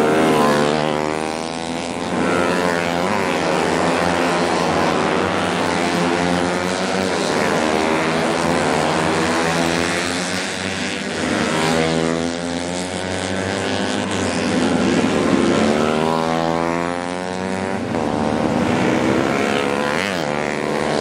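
Several four-stroke 125 cc underbone racing motorcycle engines running together, their pitch repeatedly rising and falling as they rev.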